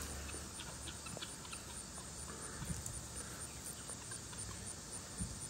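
Quiet outdoor ambience with insects chirping in a steady, high, evenly repeating pulse.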